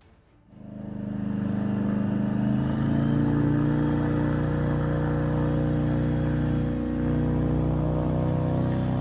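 Airboat's engine and propeller running loud and steady. The sound comes in about half a second in and builds to full loudness over the next second, with its pitch edging up slightly soon after.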